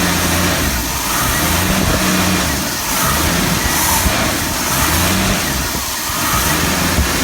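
Ford 200 cubic-inch straight-six engine of a 1966 Mustang running on a Holley one-barrel carburetor, revved up and let back down several times in a row. The idle seems slow to drop back, which the owner puts down to a sticking throttle shaft needing lubrication.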